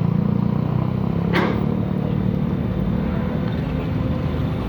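Excavator's diesel engine running steadily with a low drone, and a single short sharp knock about a second and a half in.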